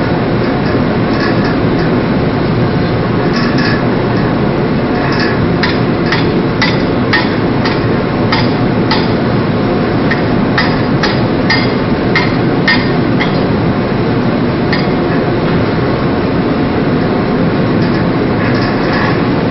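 Sharp metal-on-metal strikes with a short ring, coming in runs of about two a second through the middle and again near the end: a hammer striking steel deck gear. Under them runs a loud, steady rumble of the ship.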